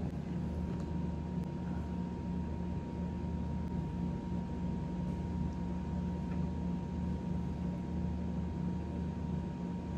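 Steady mechanical hum with a thin, high, steady whine over it, unchanging throughout.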